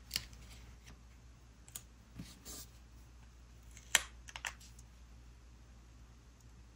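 Hands handling sticker sheets and paper on a desk: a few faint, sharp clicks and taps, the loudest about four seconds in and followed quickly by two or three more.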